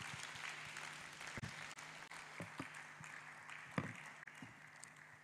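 Congregation applauding, the clapping dying away over a few seconds, with a few scattered knocks.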